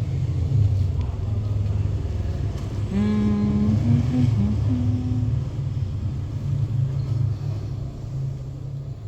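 A low, steady motor-vehicle rumble, with a short run of held pitched notes about three seconds in that lasts a couple of seconds.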